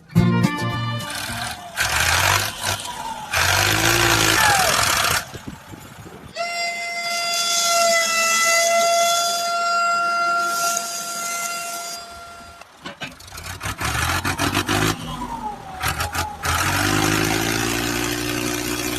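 A horn held for about six seconds in the middle, between stretches of engine-like noise that comes and goes.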